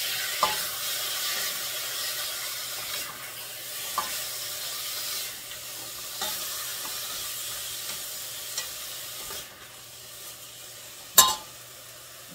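Beef chunks sizzling as they fry in a stainless steel pot, stirred with a silicone spatula, with a few light clicks of the spatula against the pot. The sizzle thins out toward the end, and a single sharp knock is the loudest sound, about 11 seconds in.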